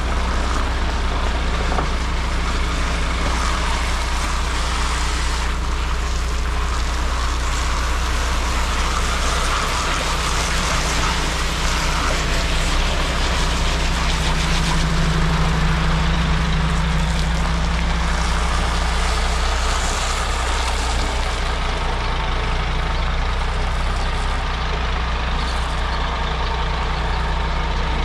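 Heavy diesel engine of construction machinery running steadily with a low drone, a little louder about halfway through.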